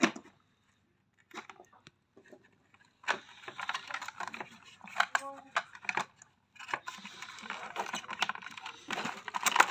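Hard plastic chassis parts of an Ecovacs Ozmo 950 robot vacuum clicking, scraping and rattling as they are pressed and fitted together by hand. The clicks are scattered at first and come thick and fast from about three seconds in.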